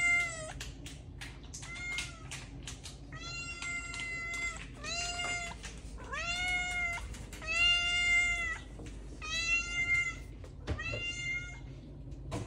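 Domestic cat meowing repeatedly: a string of about seven clear meows, each under a second, roughly one every second and a half, each rising then falling slightly in pitch.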